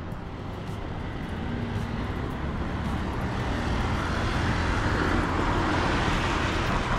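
Street traffic: a car approaching and passing close, its engine and tyre noise swelling through the second half over a low, steady rumble.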